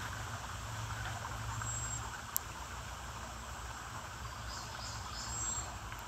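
Outdoor ambience: a steady hiss of insects over a low rumble, with one sharp click about two and a half seconds in and a few faint high chirps later on.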